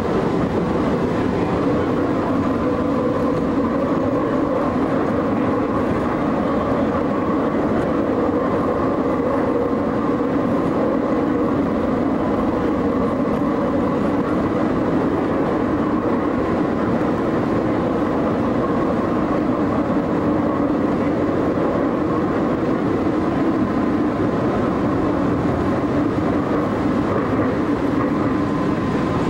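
Tandy Center Subway's rebuilt PCC streetcar running steadily along its track, heard from on board: an even rumble of wheels on rail with a faint steady whine.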